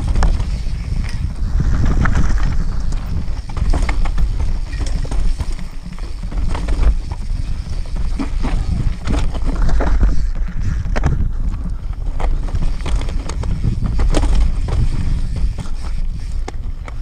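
Mountain bike descending a rocky trail: irregular knocks and rattles from the bike jolting over rocks, under a steady wind rumble on the camera's microphone.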